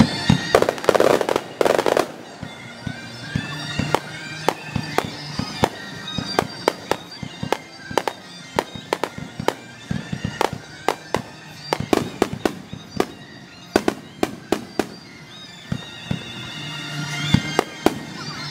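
Fireworks display: aerial shells bursting in a rapid run of sharp bangs, two or three a second, with a louder crackling burst about a second in. The recording is played back at double speed.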